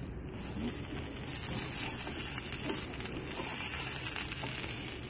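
A folded tortilla wrap sizzling quietly in a nonstick frying pan, with a single sharp click about two seconds in.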